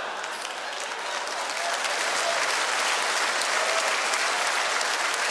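Large theatre audience applauding steadily, a little louder from about two seconds in.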